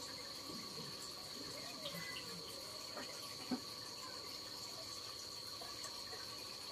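Night insects keeping up a steady, high-pitched drone, with a single light click about three and a half seconds in.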